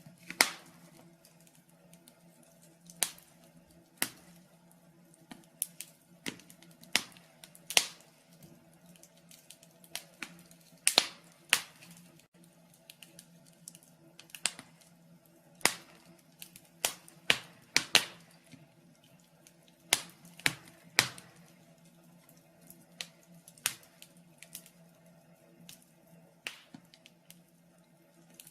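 Wood fire crackling in a fireplace: sharp, irregular pops, some much louder than others, over a faint low steady hum.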